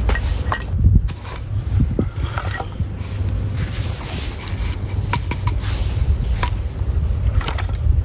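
Wind rumbling on the microphone, with a scattering of short knocks and clicks as pieces of wood and metal camp tools are picked up and set down.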